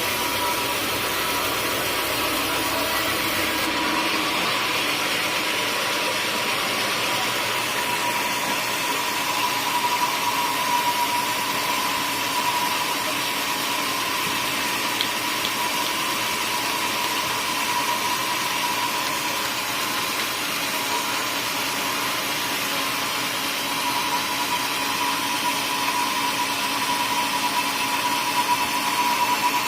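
Sawmill saw running steadily through a teak log, a constant machine noise with a steady high whine. The low rumble drops away about four seconds in.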